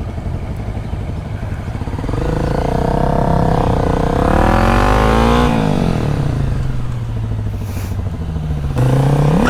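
Motorcycle engine pulling away: its pitch climbs for about three seconds, drops off as the throttle closes, and rises again near the end, over a steady low rumble.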